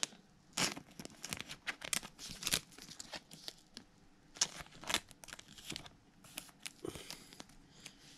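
Thin clear plastic card sleeve crinkling and rustling as trading cards are slid into it: a string of short, irregular crackles.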